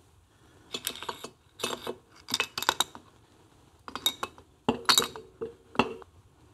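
Triumph Tiger Cub alloy cylinder head and chrome pushrod tube clinking and tapping against the cylinder barrel as they are fitted together: a string of short metallic clinks in half a dozen small clusters.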